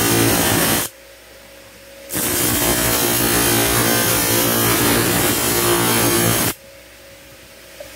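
Steel blade blank ground against a spinning electric grinder disc: a loud grinding hiss. It stops twice, about a second in for just over a second and again near the end, leaving only the quieter hum of the grinder motor.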